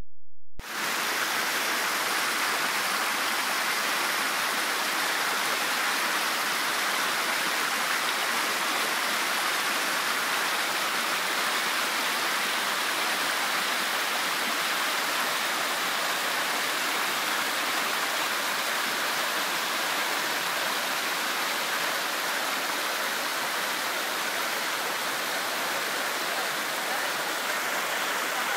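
Mountain stream rushing steadily over boulders in small white-water cascades. The sound starts abruptly about half a second in.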